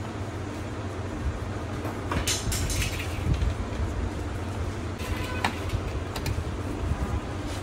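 Metal parts of a Yamaha R15 M gearbox clinking lightly as the shafts and shift forks are set into the open crankcase, a few clicks about two to three seconds in and again around five to six seconds, over a steady low hum.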